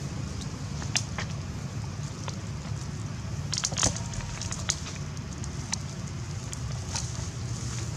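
Dry leaf litter crackling in scattered sharp clicks, a cluster of them near the middle, over a steady low rumble; no monkey calls are heard.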